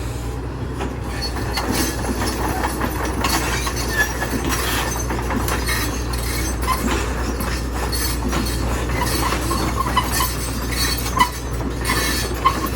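Backhoe's diesel engine running steadily with a low drone, with irregular clanking and scraping as rocks are moved.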